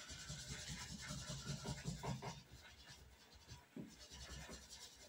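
Faint pencil scratching on drawing paper in many short, irregular strokes.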